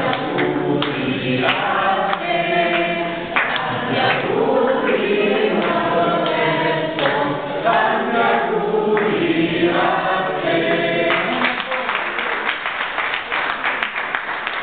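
A group of people singing a birthday song together, then breaking into clapping near the end.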